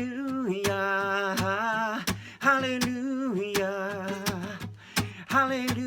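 Worship song refrain: a voice singing long, drawn-out "hallelujah" phrases with vibrato over strummed acoustic guitar.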